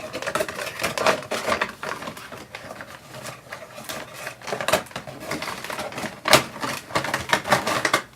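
A Pop vinyl figure and its plastic tray and cardboard box clicking, tapping and rustling as the figure is pushed back into the box, in irregular small knocks with a sharper knock about six seconds in.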